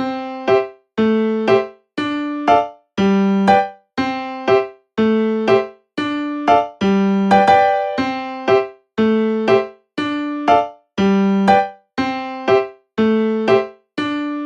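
Background music: an electric piano playing a simple repeating figure, a held lower note and then a short higher note, about once a second with brief gaps between.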